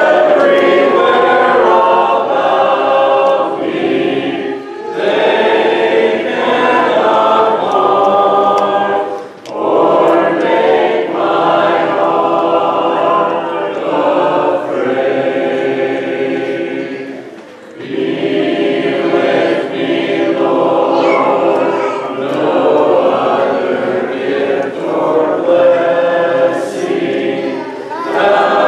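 Congregation singing a hymn a cappella, many voices together without instruments, with short breaks between phrases.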